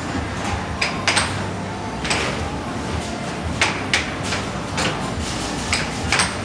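Air hockey puck clacking against the plastic mallets and the table's rails in a quick rally, a dozen or so sharp hits at irregular intervals, over steady background noise.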